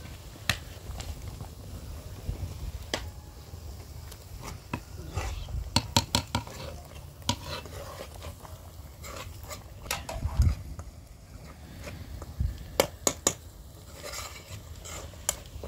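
A metal spoon stirring and scraping in a pan of frying onions and herbs, clinking sharply against the pan's sides, the clinks coming in quick bunches. A faint sizzle sits underneath.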